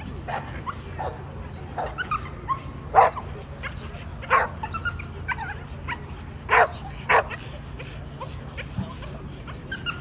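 Several American Pit Bull Terriers barking and yipping, with short calls scattered throughout and four louder, sharp barks: about three seconds in, just after four seconds, and twice between six and seven seconds in.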